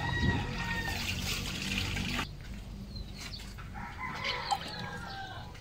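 Backyard chickens clucking and calling, with short pitched notes. A steady low hum under the first two seconds cuts off sharply.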